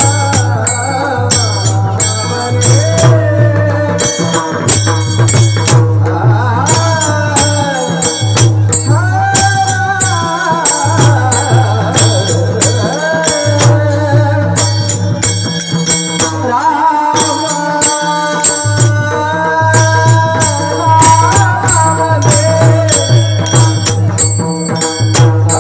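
Devotional bhajan music: a mridang (pakhawaj) drum keeps a steady beat of deep strokes under a singing voice, with small hand cymbals (taal) striking in rhythm. The drum drops out briefly about two-thirds of the way through.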